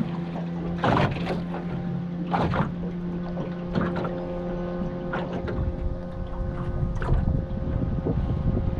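A boat engine running steadily on the water, a low hum with held tones and a rumble that grows near the end. Short bursts of noise break in about five times.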